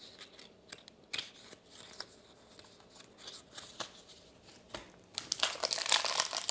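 Light scattered taps and rustles of trading cards and packaging being handled, then from about five seconds in a loud, dense crinkling as a foil Pokémon booster pack wrapper is opened.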